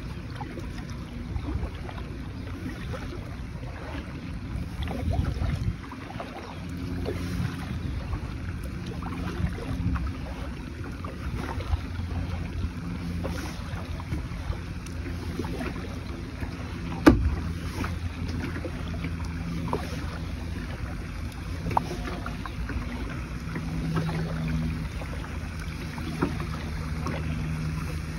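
Paddling a plastic sit-on-top kayak: paddle blades dipping and splashing in the water, with scattered small knocks on the hull and one sharp knock about two-thirds of the way through, over a low steady hum.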